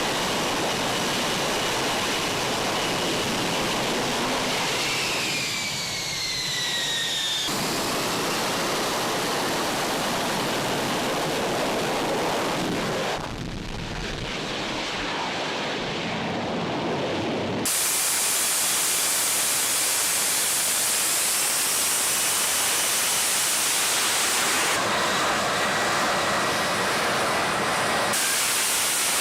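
Jet engine roar from F-35 fighter aircraft, running as a steady rushing noise across several edited shots that start and stop abruptly. About five seconds in, a falling whine sounds for a couple of seconds.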